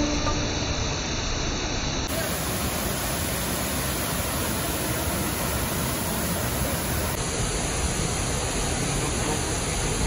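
Steady rushing roar of a waterfall: an even wash of water noise with no separate splashes or events, shifting slightly in tone about two seconds in and again about seven seconds in.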